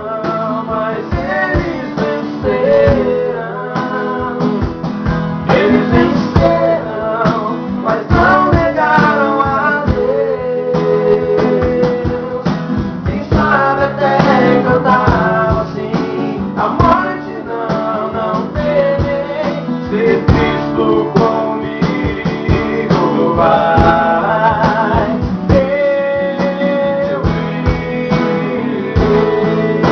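A Christian hymn sung to guitar accompaniment: a vocal melody over plucked and strummed guitar.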